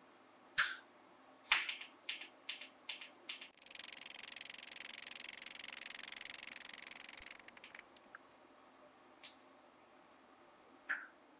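TIG welding on a steel tube frame: two loud sharp clicks and a run of quicker ticks, then the arc's steady hiss for about four seconds that cuts off suddenly, with two more sharp clicks near the end.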